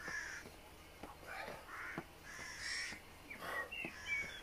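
Crows cawing: a series of short, harsh caws spread over a few seconds, with a smaller bird chirping near the end. Faint regular taps of footsteps stepping on the paving.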